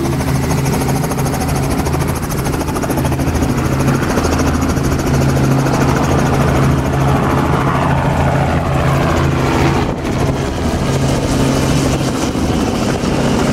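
Helicopter engine and rotors running steadily, a constant loud drone with no break.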